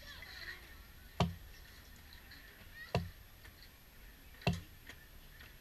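Three sharp knocks with a dull thud, evenly spaced about a second and a half apart.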